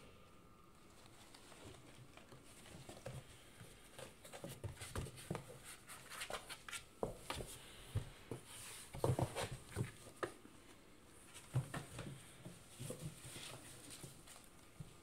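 Cats playing with a cardboard box: an irregular patter of paws tapping and scratching on the cardboard, busiest about halfway through.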